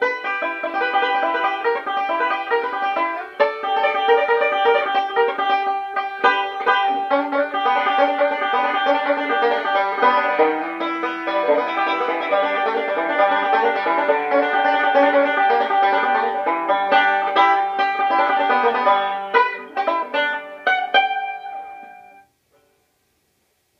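Banjo picking a tune in quick runs of plucked notes, ending with a few last separate strums before it stops about 22 seconds in.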